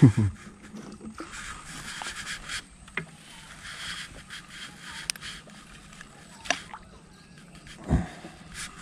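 Light handling noise from fishing gear in a small boat: soft rustling with a few sharp clicks spaced a second or two apart. A short falling vocal sound comes right at the start and another near the end.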